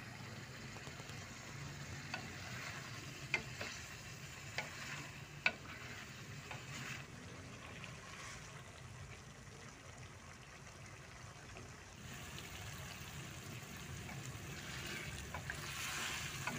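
Wooden spatula stirring chicken and peas in a metal pot, with a low sizzle from the pan and several sharp knocks of the spatula against the pot's side in the first half.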